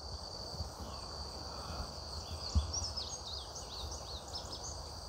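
A steady high chorus of crickets in a summer field, with a bird's run of quick high chirps in the middle. A low rumble runs under it, with one soft thump about two and a half seconds in.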